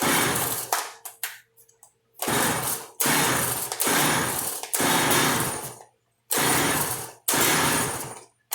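McCulloch MS2050AV chainsaw being pull-started again and again, the recoil starter yanked about once a second and the engine turning over without catching.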